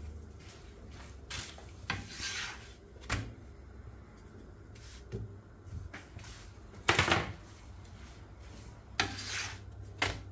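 A wooden stick scraping and sliding over a non-stick pan as it lifts and turns a thin yufka flatbread cooking on it, in several short strokes, the loudest about seven seconds in. A low steady hum runs underneath.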